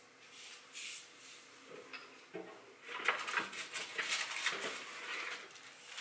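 Hands rummaging behind a kitchen drawer: a few faint rustles at first, then from about three seconds in a busy run of rustles, light knocks and scrapes as things are pulled out, among them a cardboard box of cling wrap.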